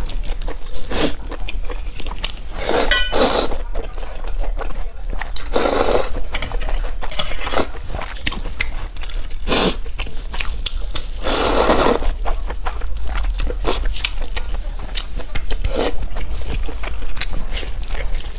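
Close-miked eating: irregular chewing and biting noises with a few louder, longer bursts, over a steady low hum.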